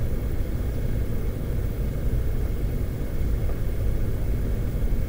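Steady low rumble of room background noise, with nothing else standing out.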